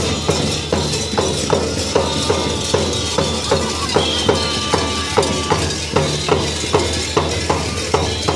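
Drums beating a steady, even rhythm of about three strokes a second for a Romanian winter bear-and-goat mummers' dance, with metallic jingling over it. A high held piping tone sounds briefly around the middle.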